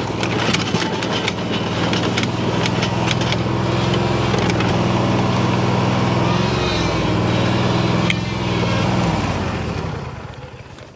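Engine of a small ridden vehicle running steadily under way, with scattered clicks over it, then dying away and stopping about nine seconds in.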